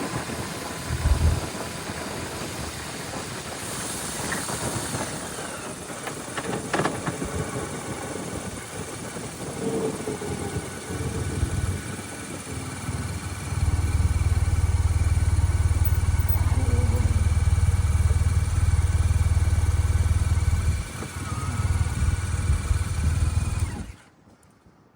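Riding noise from a 2005 BMW R1200RT motorcycle, with wind buffeting the microphone over the engine. A loud low rumble comes in at about 14 seconds and eases off about 21 seconds in. The sound cuts off suddenly a second before the end.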